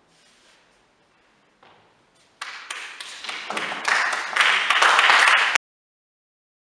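Audience applause that breaks out about two and a half seconds in after a short hush, grows louder, then cuts off abruptly.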